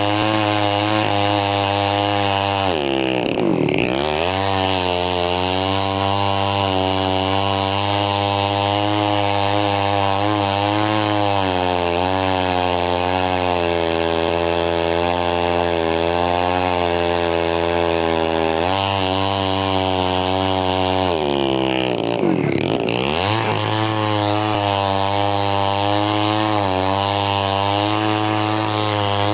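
Chainsaw engine running hard while cutting, its pitch wavering a little under load. It drops sharply and climbs back twice, about three seconds in and again near 22 seconds.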